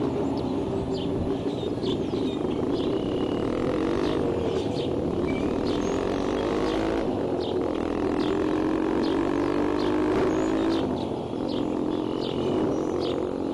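A steady low hum that shifts pitch every few seconds, with short bird chirps above it.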